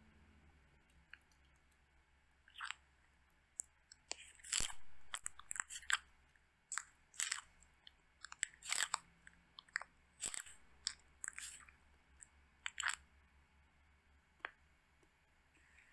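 Sulcata tortoises biting and crunching dry pellet food. Irregular sharp crunches come in runs, sparse at first, thick from about four seconds in until near the end, then a single crunch.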